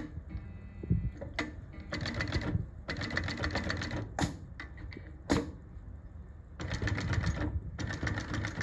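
Consew 339 double-needle walking foot industrial sewing machine stitching through leather in several short runs of rapid stitching, with sharp single clicks in the pauses between runs.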